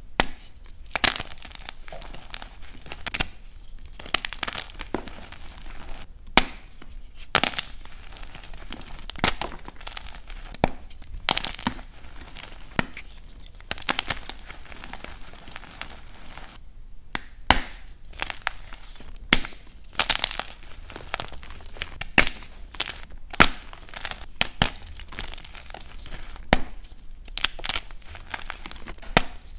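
Blocks of dyed gym chalk snapped and crushed by hand: irregular sharp cracks and crunches as the blocks break, with the gritty crumbling of chalk pieces in between.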